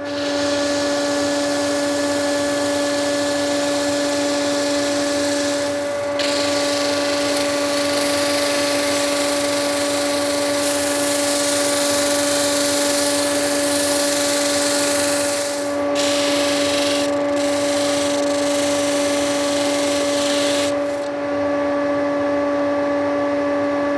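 Bench disc sander running with a steady electric-motor hum while a stabilized burl wood block is pressed against the sanding disc, giving a hiss of abrasive on wood that comes and goes. The sanding hiss eases off a few seconds before the end, leaving the motor humming on its own.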